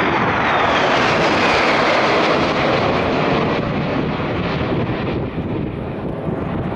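A pair of de Havilland Vampire jets, each with a single Goblin turbojet, passing overhead in formation: a loud jet roar with a whine that falls in pitch as they go past, easing slightly as they fly away.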